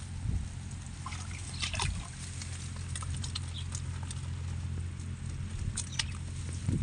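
Bamboo shrimp trap being handled and shaken open over a woven bamboo basket: scattered light clicks and rattles of the split-bamboo slats, in a few short clusters, over a steady low hum.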